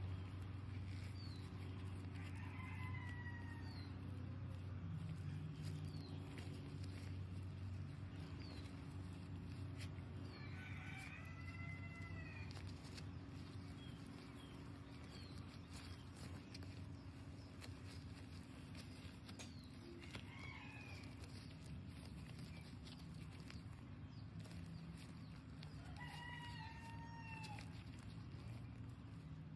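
Chickens calling four times, several seconds apart, each a short arching call, over a steady low hum.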